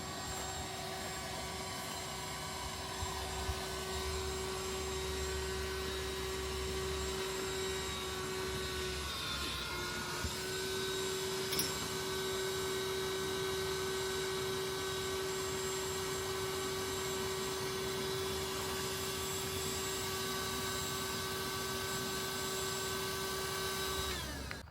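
Steady motor hum with a few fixed tones. It falters briefly about nine seconds in, then runs on evenly until it cuts off at the end.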